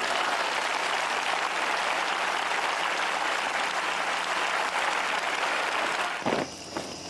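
Large crowd applauding steadily, stopping abruptly near the end and leaving a few sharp knocks.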